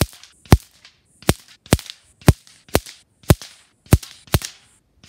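Prototype Black Widow .22 PCP air rifle firing H&N 21-grain slugs: about ten sharp shot reports in quick succession, roughly two a second.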